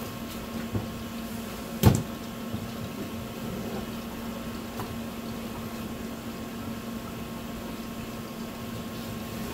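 A steady low machine hum in the room, with quiet knife and handling sounds on a plastic cutting board and a single sharp knock about two seconds in.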